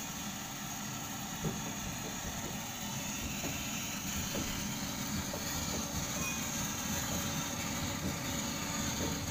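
Small electric blower fan feeding air into a dryer oven's firebox, running with a steady whir and rumble that grows slightly louder, with a few light knocks.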